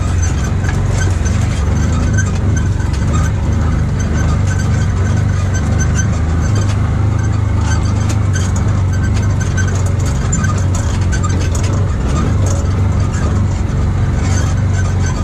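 Side-by-side UTV's engine running steadily as it drives slowly over a rough snowy trail, with a scatter of small knocks and rattles.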